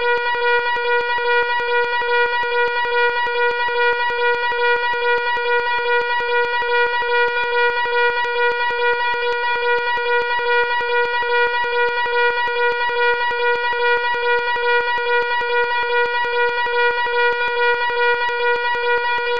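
Fire alarm horn sounding loudly without a break: one steady tone with a fast, even flutter.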